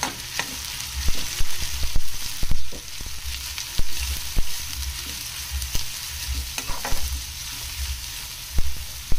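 Chopped onions sizzling in hot mustard oil in a kadhai while a metal spatula stirs them, scraping and clicking against the pan at irregular moments. The onions are being softened over low heat.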